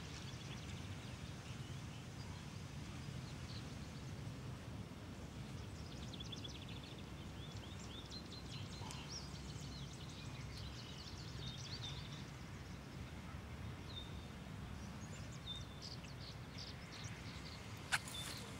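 Small birds chirping in short repeated calls over a low steady background rumble, with a sharp click near the end.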